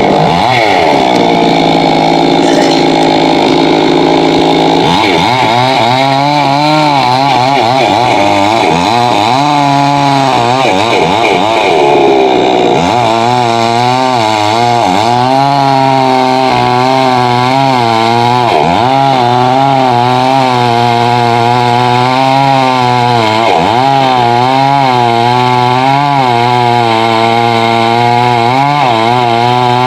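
Chainsaw running at full throttle while cutting through tamarind wood. Its engine note sags and recovers again and again as the chain bites into the cut.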